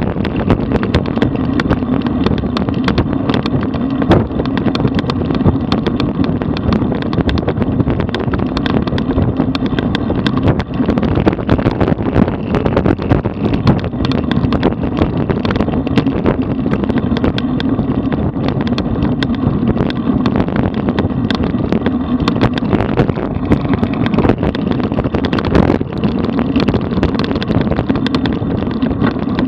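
Wind buffeting the microphone of a camera mounted on a road bike riding at about 34 km/h, mixed with the steady rumble of the tyres on the road and many small rattles and clicks from the bike.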